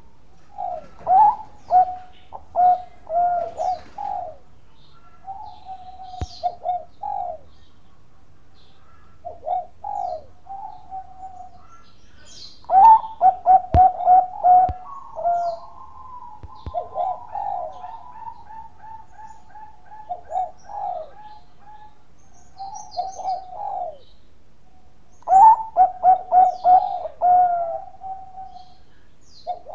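Bangkok-type zebra dove (perkutut) cooing in repeated bouts of quick staccato coos. About halfway through, one phrase runs into a long falling trill.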